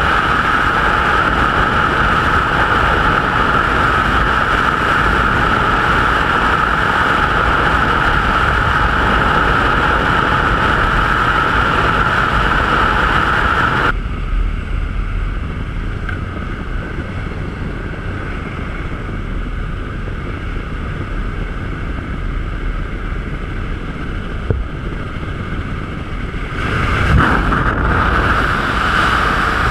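Freefall wind roaring over a helmet-mounted camera's microphone, loud and steady. About 14 s in it cuts to the quieter, steady drone of a small jump plane's propeller engine heard inside the cabin, and near the end the loud freefall wind returns after the exit.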